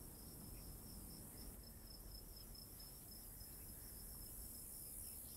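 Faint chirping of crickets, a high chirp repeating evenly about four times a second.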